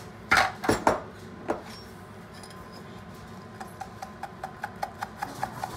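Clatter of kitchenware as blended soup is poured into a metal sieve over a glass bowl, then a spoon scraping round the wire-mesh sieve in quick, even ticks, about five a second, pushing the soup through.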